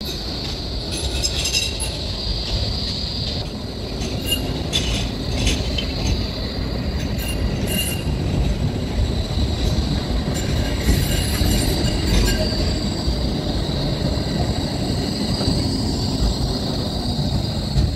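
Low-floor city tram passing close by on a curve, its wheels squealing steadily against the rails over a low running rumble, with scattered clicks.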